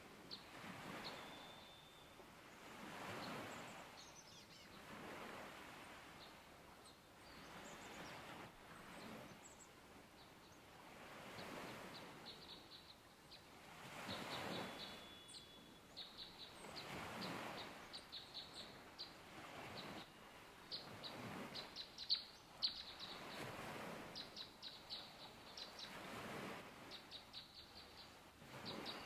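Small birds chirping with quick high chip notes and a few short whistled notes, growing busier in the second half. Under them is a soft rushing noise that swells and fades every couple of seconds.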